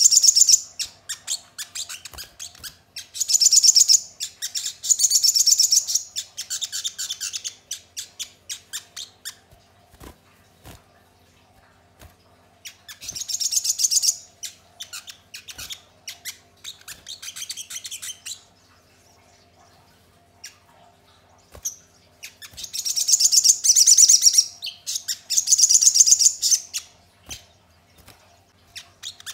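Male olive-backed sunbird (sogon) singing: bouts of rapid, high-pitched chirping trills a few seconds long, broken by pauses, with a quiet gap about two-thirds of the way through. A few light clicks come between the bouts.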